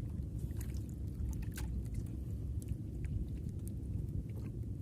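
Steady low rumble of water and movement around a small fishing boat, with a few faint scattered clicks.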